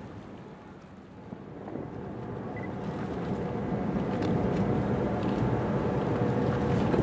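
Steady low drone of ship machinery across harbour water, a hum of several steady tones over a low rumble, growing louder from a quiet start through the first few seconds.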